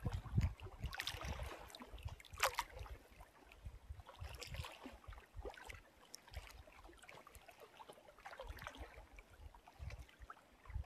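Small waves lapping and splashing at the water's surface, in a few brief splashes, over low gusty wind rumble on the microphone.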